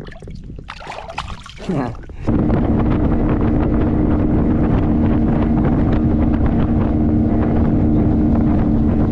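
Brief irregular handling noises, then about two seconds in a boat motor comes in abruptly and runs loud and steady with a constant hum, with wind buffeting the microphone.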